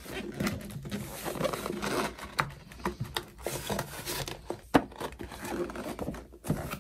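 A stiff cardboard product box being handled and worked open: card rustling and scraping, flaps pulled, and the box knocking and sliding on a table. One sharp click or snap comes about two-thirds of the way through.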